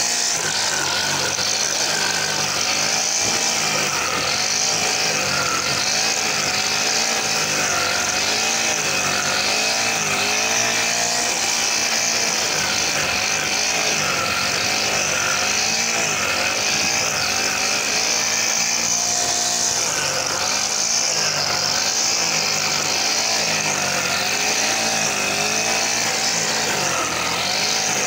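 Brush cutter with a nylon trimmer-line head running hard while cutting tall grass, its engine pitch rising and falling every couple of seconds as it is swept back and forth through the grass.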